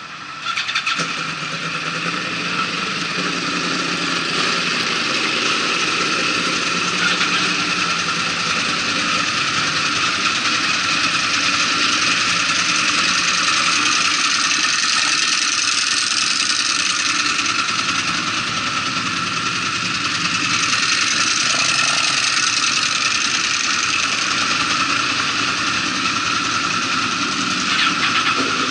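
Several sport motorcycles running together at a stop, their engines idling under a steady high-pitched hiss.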